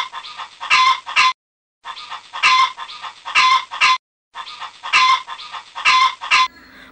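Chicken clucking: three bouts of short, sharp clucks, each lasting about two seconds, with brief silent gaps between them.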